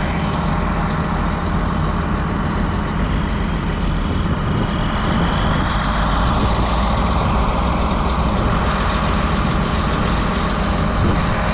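A John Deere self-propelled forage harvester running steadily while chopping corn: a steady, unbroken drone with a faint high whine over it.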